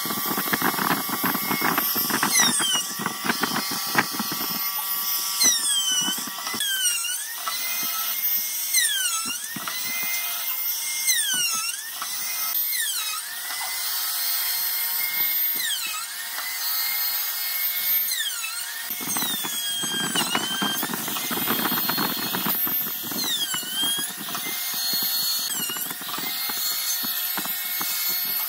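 Power tools working wood, with repeated high squealing tones that dip and rise. The heavier grinding noise comes in the first few seconds and again about two-thirds of the way through.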